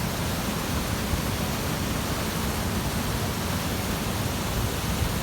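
Waterfall: a steady, loud rush of falling water with a low rumble underneath.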